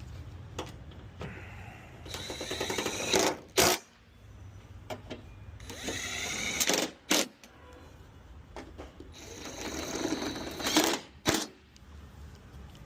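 A small power tool motor, such as a cordless ratchet, runs in three short bursts, its pitch climbing in each, and each burst ends in a sharp click.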